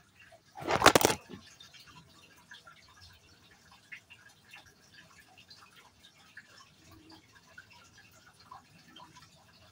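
A loud handling clatter about a second in as the camera is picked up and tipped to face upward, then faint scattered drips of water.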